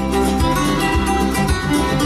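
Guitar music with quick plucked notes, played through Vandersteen Model 2Ci floor-standing loudspeakers driven by a McIntosh MC2500 power amplifier and Cary SLP-98L tube preamp.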